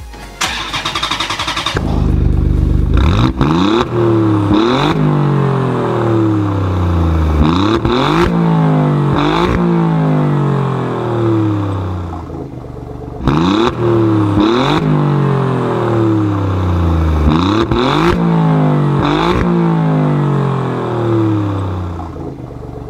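An engine revving hard: its pitch slides down and then jumps back up again and again, every second or two, after a short burst of noise at the start.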